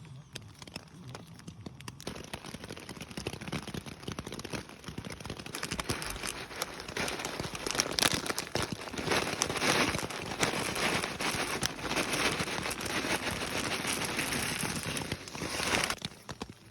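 Rain falling, a dense crackle of drops hitting close to the microphone. It grows heavier, holds through the middle, then cuts off suddenly near the end.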